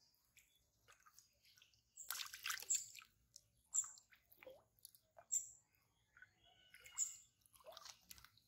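A hooked fish thrashing at the surface of shallow water, making a series of short splashes, about five over several seconds, with wading through shallow water near the end.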